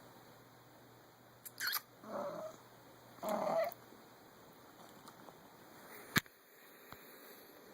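A sleeping pet snoring: a short sniff, then two nasal snores about a second apart, the second louder. A single sharp click near the end.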